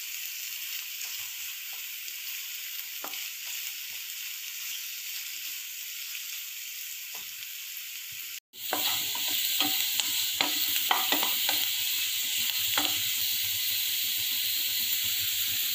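Pirandai (veldt grape) stems sizzling as they fry in hot oil in a nonstick pan, with occasional light ticks and crackles. The stems are being fried until their green rawness goes. A brief dropout comes about halfway through, after which the sizzle is louder and crackles more often.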